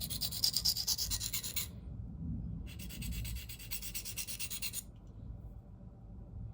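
Steel knife blade scraped rapidly back and forth across a dry 325-grit diamond plate, reprofiling the edge to remove the factory grind: two runs of quick, hissing strokes separated by a short pause.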